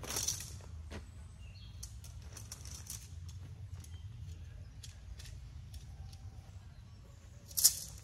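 Camping gear being handled while a tent is pitched: scattered light clicks and rustles, a short swish at the start and a louder, sharp swish near the end, over a steady low rumble.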